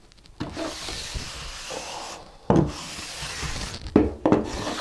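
A flat trowel scraping across a damp sand-mix (deck mud) mortar bed, smoothing the surface of a shower pan. There are about three long strokes, each starting with a light knock as the trowel lands.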